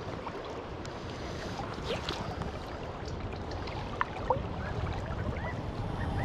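Creek current rushing steadily, growing a little louder toward the end, with a couple of light clicks about four seconds in and a few short high chirps near the end.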